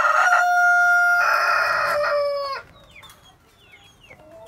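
A rooster crowing: one long held crow that ends in a falling note about two and a half seconds in, followed by a few faint short chirps.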